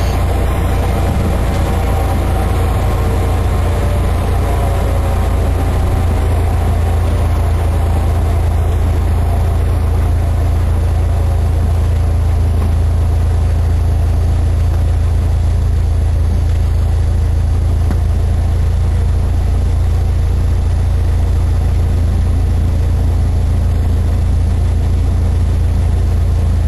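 Cessna 152's four-cylinder Lycoming engine and propeller running steadily at low power, a deep even drone heard from inside the cabin.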